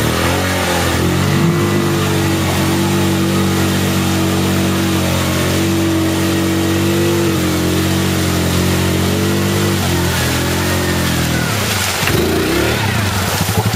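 Yamaha Grizzly 700 ATV's single-cylinder engine revving up and held at high revs while the quad ploughs through deep mud, the revs dropping away about ten seconds in.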